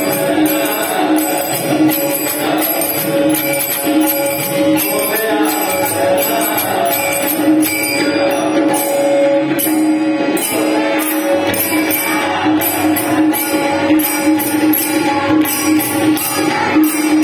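Devotional bhajan music: two steady held drone tones under a continuous, even rhythm of jingling percussion.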